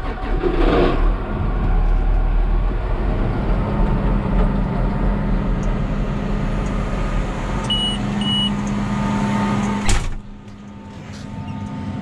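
Case IH tractor running, heard from inside the cab: a steady engine and drive hum with two short electronic beeps about eight seconds in. About ten seconds in it cuts off sharply to a quieter, steady engine hum.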